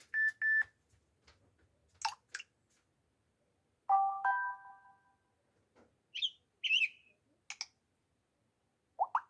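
Samsung Galaxy J2 Prime notification tones, played one after another with short gaps: a quick pair of high beeps, a short chirp, a two-note chime, a few warbling chirps and a final short sweep.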